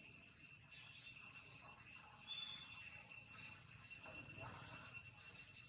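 Steady high-pitched insect drone, like crickets or cicadas, with two short, loud, high chirps, one about a second in and one near the end.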